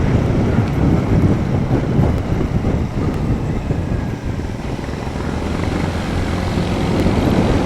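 Royal Enfield Bullet's single-cylinder engine running steadily as the motorcycle is ridden.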